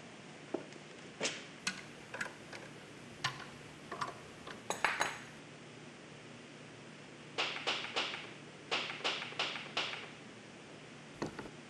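Small hammer striking the top of a steel rod set in a fibreglass mould, a run of about eight quick metal-on-metal blows a little past seven seconds in, knocking the rod loose to free the concrete rotor. Before that come scattered clinks and knocks as the mould and its rods are handled.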